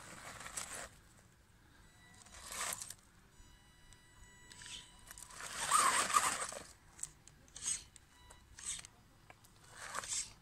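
WLtoys 12428 RC car's tyres scrabbling and crunching over loose dry dirt in several short bursts, the longest and loudest about six seconds in.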